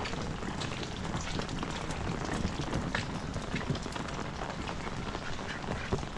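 Heavy rain falling, with water dripping and splattering on hard surfaces in scattered irregular clicks.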